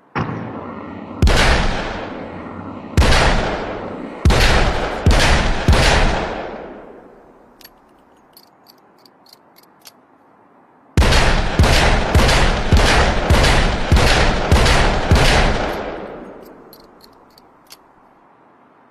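Smith & Wesson Model 629 Stealth Hunter .44 Magnum revolver firing. First comes a softer report, then five heavy shots at uneven spacing, each with a long echoing tail. After a few faint clicks, a rapid string of shots follows at about two a second.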